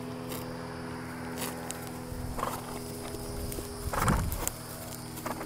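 A horse on a lunge line moving on grass: soft hoof sounds, with a louder short noisy burst about four seconds in, over a steady faint hum.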